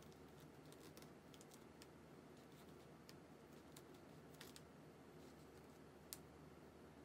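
Faint, scattered small clicks and taps of an awl point pricking through paper as a paper pattern is stepped around a curve, with soft paper shuffling between them; one sharper click about six seconds in.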